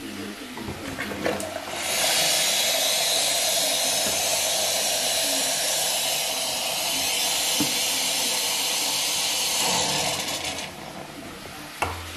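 Quooker instant boiling-water tap pouring near-boiling water into a stainless steel saucepan, a steady rushing pour with steam that starts about two seconds in and stops near the end, after a couple of small clicks.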